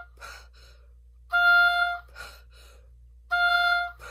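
An oboe playing short held notes on one pitch, twice, with an audible breath after each note, exhaling and then inhaling. It is the habit of emptying the lungs and then inhaling at every breath to shed built-up carbon dioxide, a breath called really loud.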